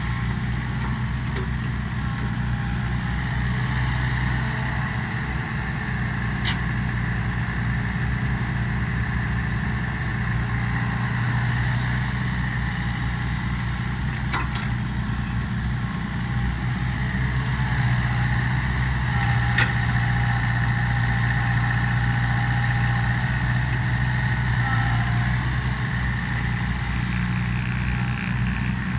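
Diesel engine of a Komatsu crawler excavator running steadily while it digs and loads soil into a dump truck, with a few faint knocks along the way.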